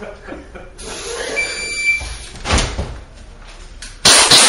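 A shot timer's start beep about a second and a half in, followed by pistol shots on an indoor range: one about two and a half seconds in and a much louder one near the end.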